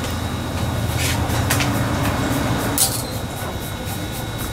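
Kitchen knife cutting a lime on a wooden chopping board: a few sharp knocks of the blade against the board, the loudest nearly three seconds in, over a steady low hum.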